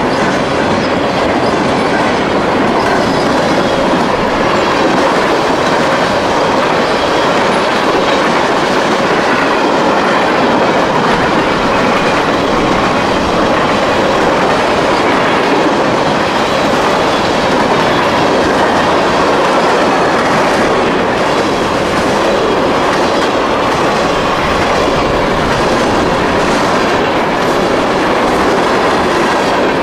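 CSX freight train's cars rolling past at speed, a loud, continuous steady rumble and clatter of wheels on the rails.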